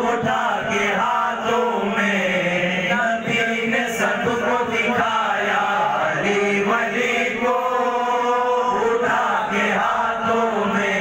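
Male voice chanting a manqabat, an Urdu devotional praise poem for Ali, in a sung melody with drawn-out phrases. A long held note comes about three-quarters of the way through.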